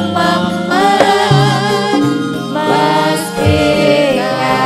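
Live langgam campursari music: singing with a wavering vibrato over keyboard-led band accompaniment.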